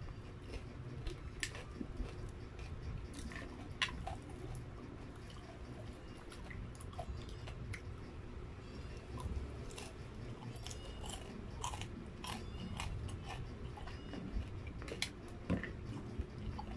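Close-miked chewing and biting of crispy battered, deep-fried chicken proben (chicken proventriculus), with scattered short crunchy crackles and wet mouth clicks.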